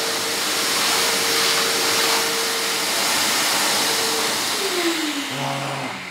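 Canister vacuum cleaner running steadily with a whining motor and airy rush, then switched off about four and a half seconds in, its whine falling in pitch as the motor winds down.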